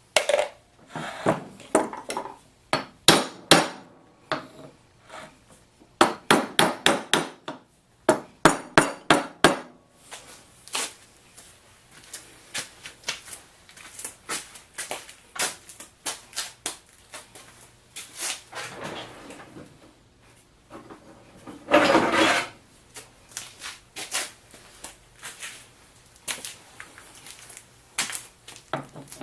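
Hammer blows and metal knocks on the steel parts of a Wilton Bullet vise. Quick runs of sharp strikes come in the first ten seconds, then lighter, scattered taps, with a louder rattling clatter about two-thirds of the way through.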